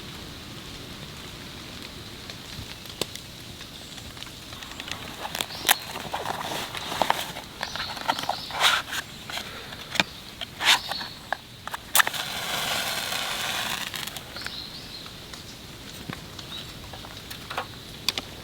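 Steady insect chirring, with a run of sharp clicks and knocks through the middle and a hiss lasting about two seconds after them.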